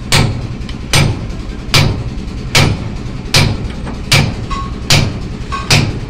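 Steady hammer blows on metal, eight evenly spaced strikes about one every 0.8 seconds, each a sharp knock with a low thud.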